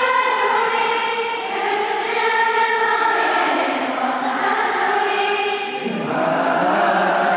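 Arena crowd of thousands singing a Korean pop song together in unison, holding long notes like a huge choir; about six seconds in they start a new line.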